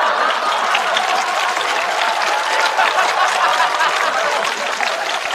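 Large studio audience applauding, a dense sustained clapping that slowly fades near the end.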